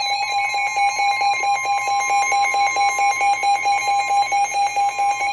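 Weather alert radio sounding its alarm for a severe thunderstorm warning: rapid, evenly pulsed electronic beeping over a steady tone, continuous throughout.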